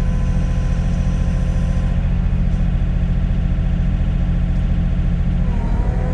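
Sany SY35U mini excavator's diesel engine running at a steady speed, a loud even drone, with a faint high tone over the first two seconds or so.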